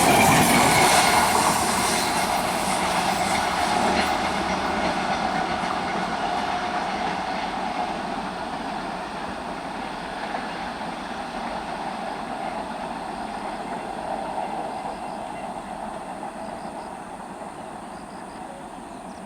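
Electric multiple unit local train running on the track and moving away, its wheel and rail noise loud at first and fading steadily.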